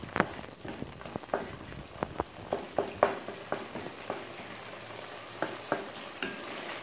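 Wooden spatula stirring chicken and tomato masala in a steel pot, with irregular knocks and scrapes against the pot over a steady sizzle of frying in oil. The masala is being fried down until the oil separates.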